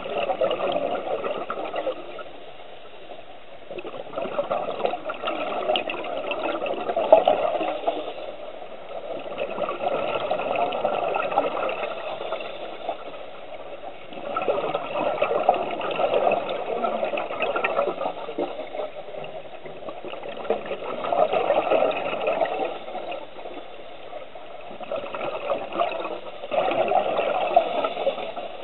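Scuba regulator breathing heard underwater: exhaled bubbles gurgle in surges every four to six seconds, with quieter stretches between breaths.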